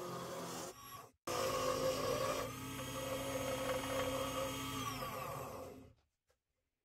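An electric workshop power tool running steadily, its motor giving a steady hum with a higher whine. The sound breaks off briefly about a second in, then dies away about six seconds in.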